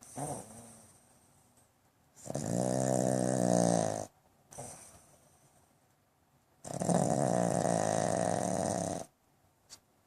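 Pug snoring: two long snores of about two seconds each, one about two seconds in and the next about halfway through, each followed by a short, softer breath.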